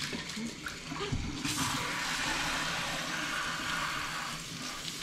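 Kitchen faucet running into the sink over a child's hands, the flow getting much stronger about a second and a half in and then rushing steadily. A low thump and a few light knocks come just before.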